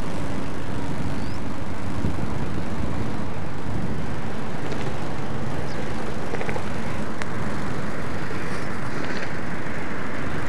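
Steady motor-vehicle engine and road noise, with a few faint high chirps.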